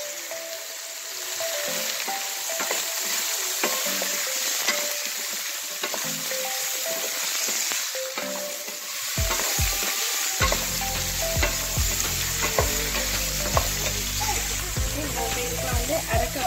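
Vegetables sizzling in hot oil in a non-stick pan: a steady frying hiss. They are stirred with a wooden spatula, which gives scattered light scrapes and taps against the pan.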